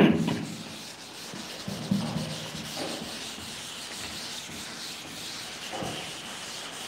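Chalkboard duster wiping chalk off a blackboard: a long, continuous rubbing scrape of felt on slate, following a sharp knock at the very start.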